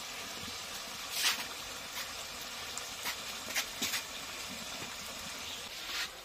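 Chicken curry simmering in a wok over a wood-fired clay stove, a steady low hiss, with a few short sharp noises about a second in and again between three and four seconds as paste is added and stirred in.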